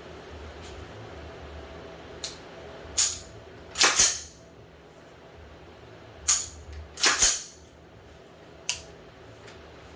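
The action of a newly assembled AR-15 with a Tri Arc bolt carrier group being cycled and function-checked: a series of sharp metallic clacks, the loudest coming as quick doubled clacks about 4 and 7 seconds in, with single lighter clicks between.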